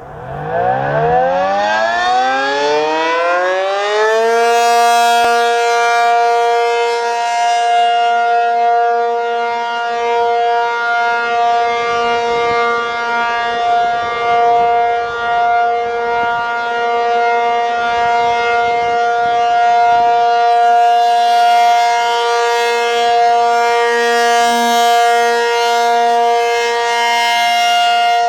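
ACA P-50 outdoor tornado siren winding up: its tone rises in pitch for about four seconds, then holds as a steady, loud wail with slight swells in loudness. This is the start of its three-minute alert signal, sounded as a routine monthly test.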